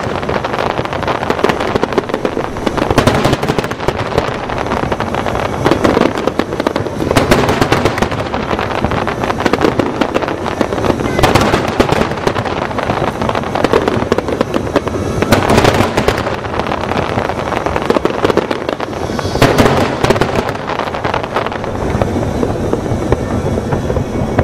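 Aerial fireworks bursting in a dense, continuous barrage: many sharp bangs and crackles in quick succession, loud throughout.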